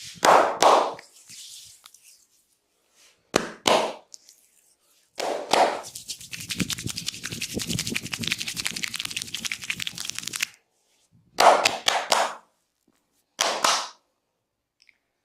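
Massage strokes by hand on the body: a few short bursts of slaps, then a fast, steady run of strikes for about five seconds, then two more short bursts.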